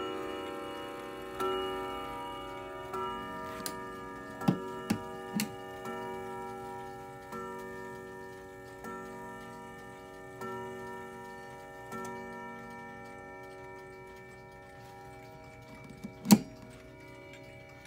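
Howard Miller 613-303 pendulum clock striking the hour on its chime rods, a ringing stroke about every second and a half, eight strokes in all, with the movement ticking underneath. A few sharp knocks come about halfway, and one loud knock comes near the end.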